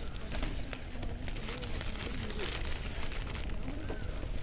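Dry coconut palm fronds and newspaper crackling and rustling as they catch fire and are handled, with many sharp pops and crackles.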